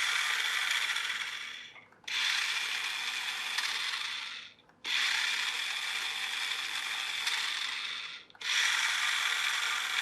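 Small geared electric motor of a micro RC car whirring in four runs of about two seconds each, each starting and stopping sharply, with a steady high whine through the gear noise.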